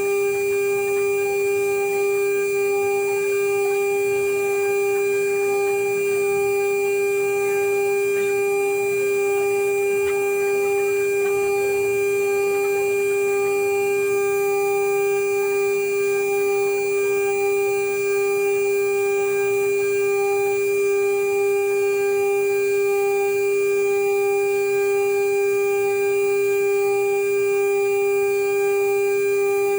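CNC router spindle running with a steady, unchanging high whine while engraving a marine aluminium seal plate, with faint scratchy cutting noise beneath.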